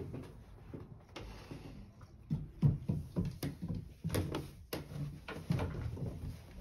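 Footsteps going down wooden stairs: a run of soft, irregular thumps, about two a second, starting about two seconds in.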